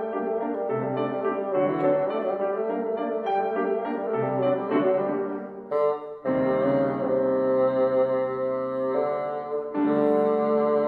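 Bassoon and grand piano playing a classical duet: a busy run of short, quickly changing notes for about six seconds, a brief break, then longer held notes.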